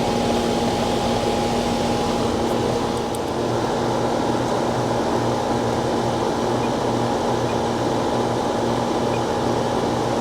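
Steady hum of a running central air-conditioning condensing unit, its fan and compressor holding a constant pitch.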